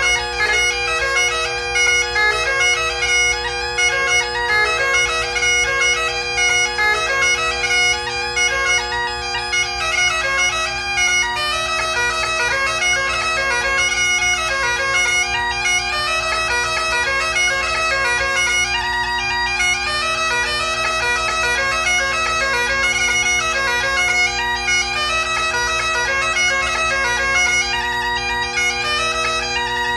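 Solo Great Highland bagpipe playing a tune: the drones hold a steady unbroken hum while the chanter melody moves quickly from note to note above it.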